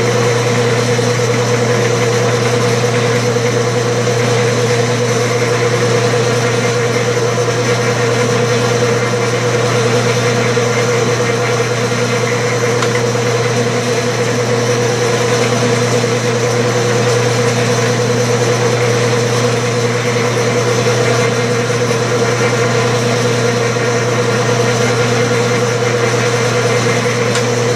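Clausing metal lathe running steadily in back gear at slow speed, a constant machine roar with a low hum and a higher tone over it, while the carriage feeds a single-point tool along the work on a thread-cutting pass.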